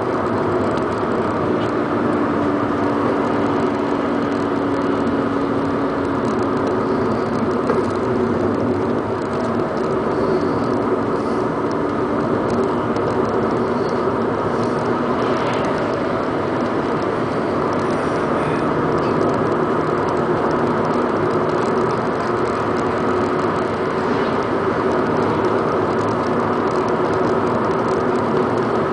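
Car driving at highway speed, heard from inside the cabin: steady road noise with a low engine drone whose pitch shifts slightly partway through.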